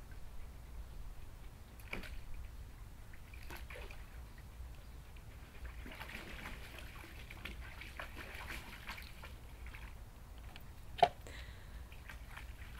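A dog splashing and sloshing water in a shallow plastic kiddie pool, in scattered bursts with a busier stretch in the middle. One sharp knock near the end is the loudest sound.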